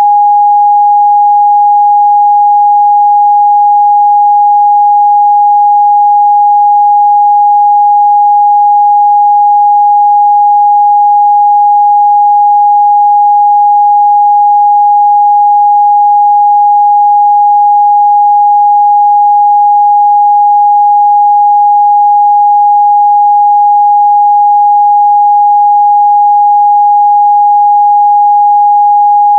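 Continuous 824 Hz pure sine-wave test tone, held steady at one pitch and level with no overtones.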